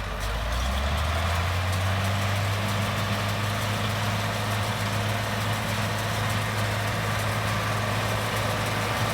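Farmall 766 tractor engine throttling up over the first second or two, then running steady at working speed as it drives the baler.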